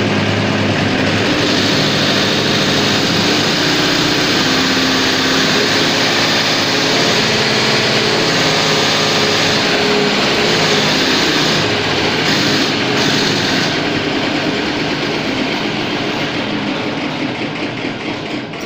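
Fuel injection pump test bench spinning the in-line injection pump of an MTZ-80's D-240 diesel at working speed, a steady mechanical running with a strong hiss. The sound fades away over the last few seconds.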